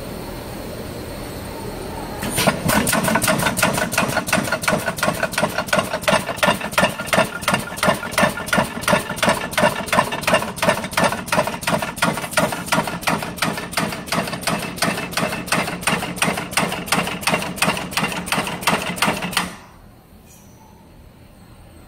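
Fan-guard middle-ring spot welding machine running a weld cycle: after a steady hum, a long run of regular sharp clacks, about four or five a second, as it steps the guard round and welds the ring to the wires, stopping suddenly near the end.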